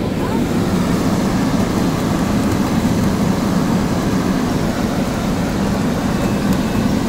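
Electric air blower of a ball-blaster play table running with a steady low drone, blowing plastic balls up out of the holes in its top.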